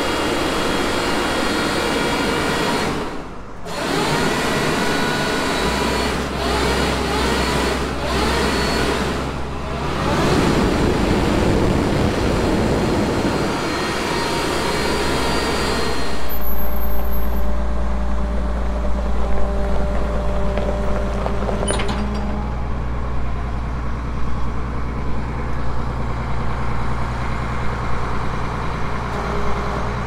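Loud rushing air noise, cutting out briefly twice, typical of a blower or vacuum cleaning out a planter. About halfway through it gives way to the steady low hum of a diesel tractor engine running.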